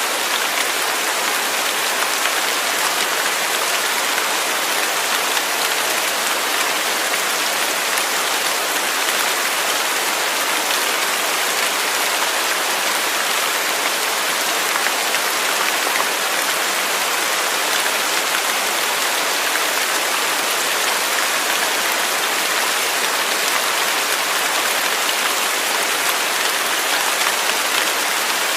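Waterfall: a steady, even rush of falling and splashing water, mostly a high hiss with little low rumble.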